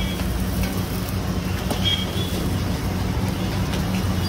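A steady low hum over general street background noise.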